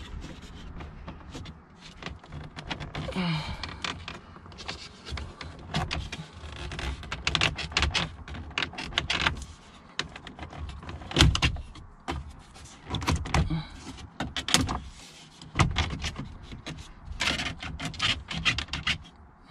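Plastic centre dash fascia of a 1996–2000 Honda Civic being pulled and wiggled by hand. Irregular clicks, knocks, creaks and rubbing of the plastic panel and its clips come throughout, with the sharpest knock about halfway through. The panel is still held by its clips and won't come free.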